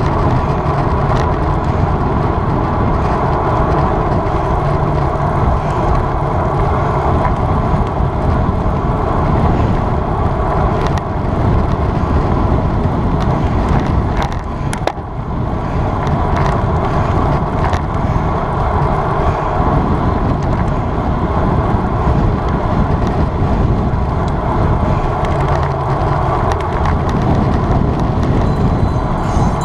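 Steady rush of wind and road noise while a road bicycle is ridden at speed, with a brief dip about halfway through.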